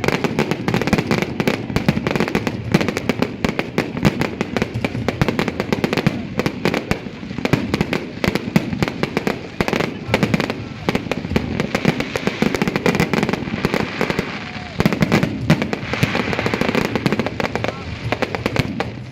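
Dense, continuous crackle of many fireworks and firecrackers going off at once, the sharp bangs overlapping with no pause.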